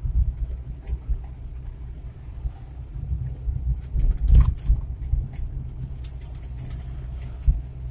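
Suzuki Carry 1.0 pickup driving, heard from inside the cab: a steady low engine and road rumble with frequent rattles and clicks from the cabin, and a heavier thump about four seconds in.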